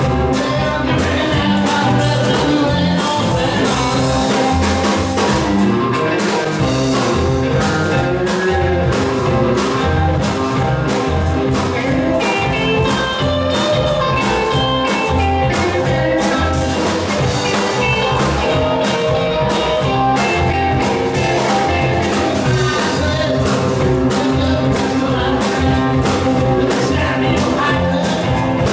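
Rockabilly band playing live: two electric guitars, upright bass and drums, with a steady driving beat and the lead guitar picking up high on the neck.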